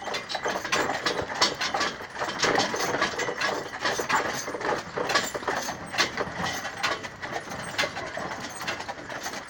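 Hooves of two carriage horses, a Haflinger and an Appaloosa, clopping in an irregular run of knocks, mixed with the rattle and clatter of the carriage and its harness.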